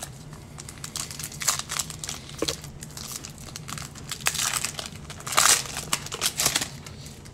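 Shiny foil wrapper of a Donruss Optic baseball card pack crinkling in the hands and being torn open, in irregular bursts that are loudest about two-thirds of the way through.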